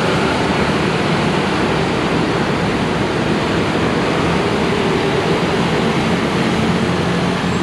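Steady road-traffic noise: a continuous even rush with a faint low engine hum underneath.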